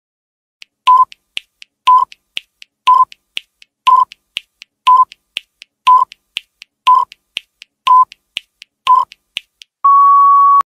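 Countdown timer sound effect: nine short beeps, one a second, with lighter ticks between them. Near the end, as the count reaches zero, a longer, slightly higher beep sounds.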